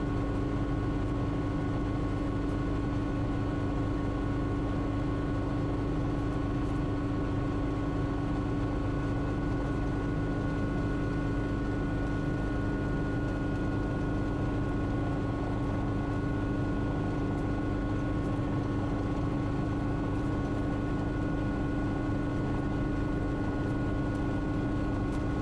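Cockpit noise of a Schweizer 300 (Hughes 269) piston helicopter in steady flight in the traffic pattern, picked up on the pilot's audio: the engine and rotors make an even drone with a few constant whining tones over it.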